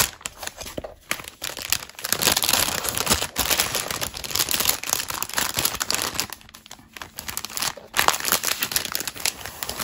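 Clear plastic bag crinkling and rustling as it is handled and flat perforated wooden pieces are pushed back into it. The rustle is dense, with many short sharp crackles, and it eases off briefly a little past the middle.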